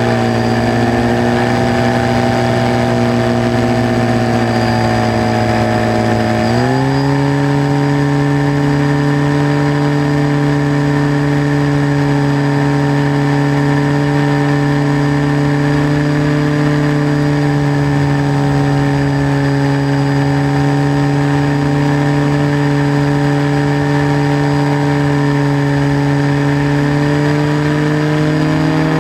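Model aircraft motor and propeller running steadily, with a pitched drone that steps up sharply about six seconds in as the throttle is raised, and rises slightly again near the end.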